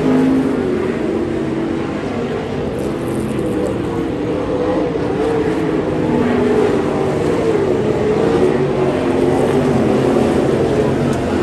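Pack of winged dirt sprint cars racing, several V8 engines running at once, their pitch rising and falling as they circle the track.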